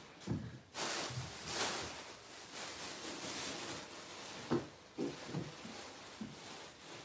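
Rustling for the first few seconds, with scattered light thumps of socked feet and a kitten scampering and pouncing on a wooden floor.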